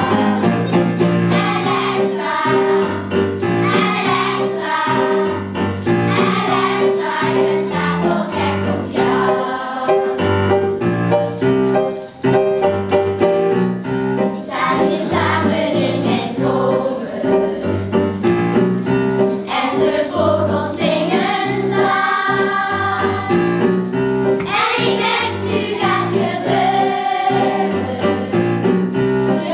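A children's choir singing a song together with piano accompaniment, carrying on steadily with only a brief dip about twelve seconds in.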